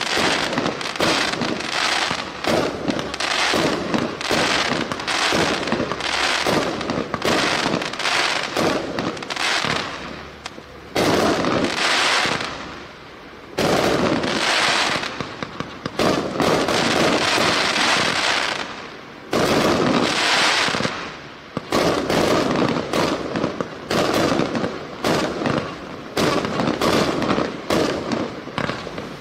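A 1-inch, 144-shot consumer fireworks cake firing a rapid string of shots with quick bursts in the air. After about ten seconds come several stretches of dense crackling, each a second or two long, from crackling-star breaks, with more shots between them.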